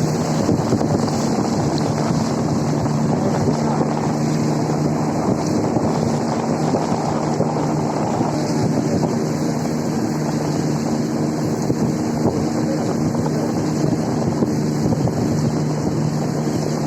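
Waterfall rushing steadily, with a steady low hum running underneath.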